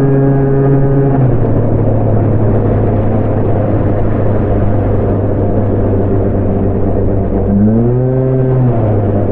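A motor vehicle's engine running at a steady idle with a pitched hum. The hum drops in pitch about a second in, then briefly swells up and settles back near the end.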